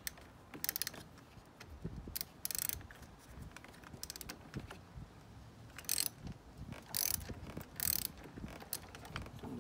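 Hand ratchet clicking in short quick runs, several times over, as the 10 mm nut on a car battery terminal clamp is loosened to disconnect the battery.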